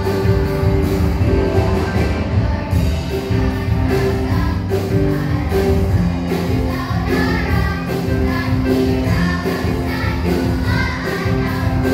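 Children's choir singing together over instrumental accompaniment with a steady beat.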